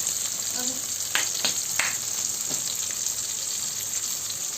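Onions and tomatoes sizzling steadily in hot oil in a curry pan, with a few short knocks in the middle, about a second or so in.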